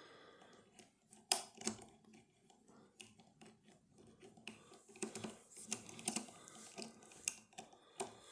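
Lock picks and a tension tool working inside a lever padlock: scattered small metallic clicks and scrapes, with a sharper click about a second in and a busier run of clicks past the middle.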